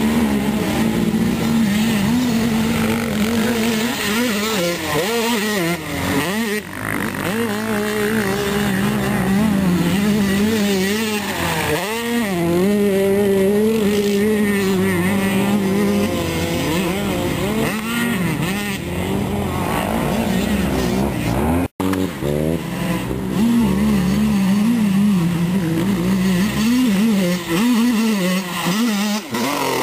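Motocross dirt bike engines revving hard, pitch rising and falling with the throttle and gear changes. The sound drops out for an instant about two-thirds of the way through.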